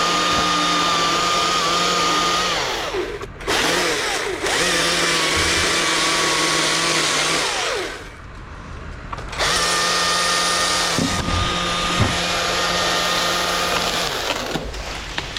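Chainsaw held at high revs while cutting, in three long runs: a brief dip about three seconds in and a lull of about a second and a half just past the middle before it revs up again.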